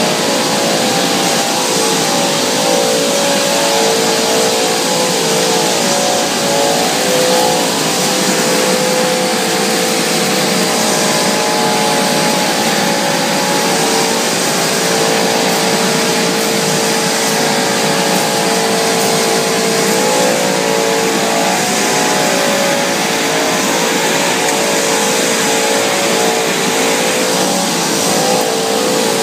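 Food extrusion production line for breakfast cereal running: loud, steady machine noise with a cluster of humming tones that waver slightly in pitch.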